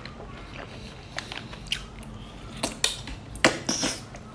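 Close-up eating sounds: soft wet chewing and lip smacks of saucy shellfish meat, with a handful of short sharp clicks spread irregularly through it.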